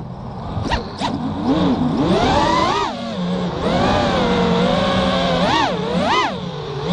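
FPV racing quadcopter's brushless motors (EMAX RedBottom 2300 kV on 4S) spinning three-blade 5-inch props, their whine rising and falling in pitch with the throttle. The pitch is low at first as the quad flips, climbs about three seconds in, and jumps up twice in quick punches near the end; two short clicks sound about a second in.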